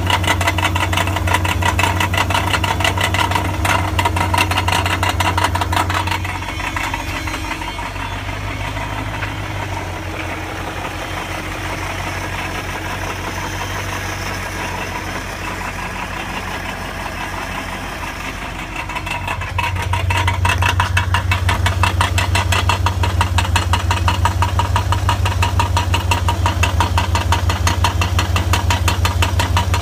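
1999 BMW 540i's 4.4-litre V8 running with a loud, fast, even rattle, which the owner hears loudest from under the car. The rattle falls back to a quieter level about six seconds in and comes back loud about two-thirds of the way through.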